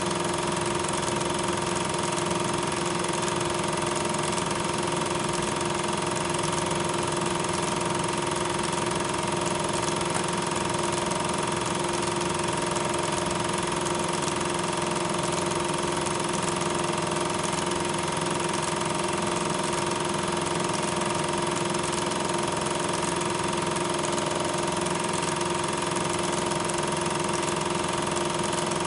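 Steady, unchanging machine hum with hiss and two constant tones, the same through every change of scene: noise added in the transfer of silent 8mm film, not the sound of the trains.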